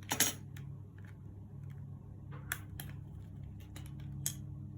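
Scattered light clicks and taps, as of a laptop and small parts being handled, about ten in all; the sharpest comes right at the start. Under them runs a steady low hum.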